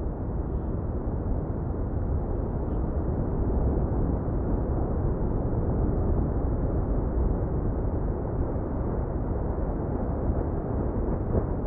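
Lava fountain erupting from a volcanic vent: a continuous low, rushing noise, heaviest in the deep bass, at an even loudness with no separate blasts.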